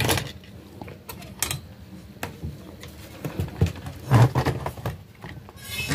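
Scattered light clicks and rustles of handling around an opened CRT television circuit board.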